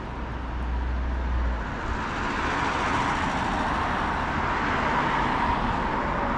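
Road traffic going past: a steady hiss of tyres and engines that grows louder about two seconds in.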